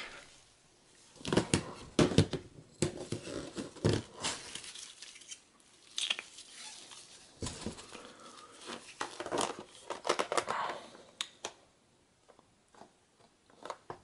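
Irregular plastic clicks, knocks and rustling as a laptop battery pack is handled, slid into its bay on the underside of a Toshiba Portege R930 and latched in place. It goes quieter near the end.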